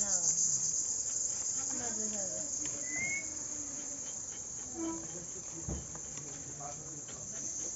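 Steady high-pitched chirring of insects, with faint voices in the background and a single knock about six seconds in.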